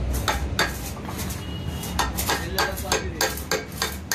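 Sharp metallic clinks and taps of steel bushings being handled and seated in the steel mounting bracket of a hydraulic breaker hammer, a couple early and then a quicker run of about eight in the second half.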